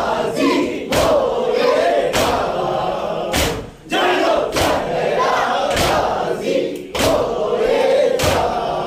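A group of male mourners chanting a Muharram noha (lament) together, with their hands slapping their chests in unison in matam. The slaps land together about once every 1.2 seconds, in time with the chant.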